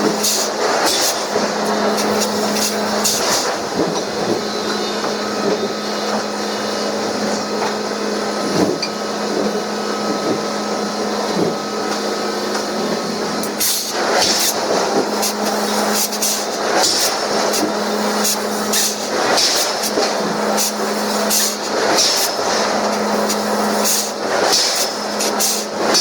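Heavy forging-shop machinery running: a low hum that switches on and off, under irregular metallic clanks and knocks and repeated short bursts of hiss.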